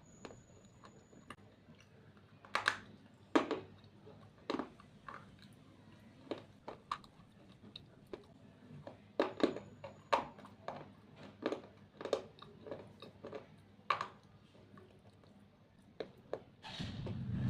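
Slate being bitten and chewed: a series of sharp, irregular crunches with quieter gritty chewing between them, the crunches bunching closer together in the middle. A low rumble starts near the end.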